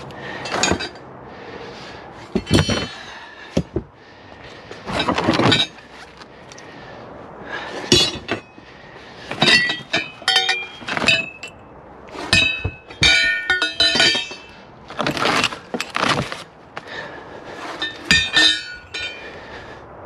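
Pieces of scrap metal clanking and knocking together as they are handled, in an irregular series of about a dozen sharp hits. Many of the hits leave a short metallic ring.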